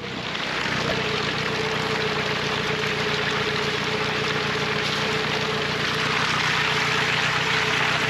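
Farm ute driving along a wet, muddy paddock track, close beside a wheel: a steady hiss of tyres through wet grass and mud over the low hum of the engine, with a steady whine joining about a second in.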